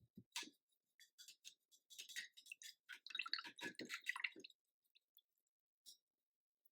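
Faint, wet squishing of a paintbrush in acrylic paint: a quick run of short, soft dabs and strokes, thickest from about one to four and a half seconds in.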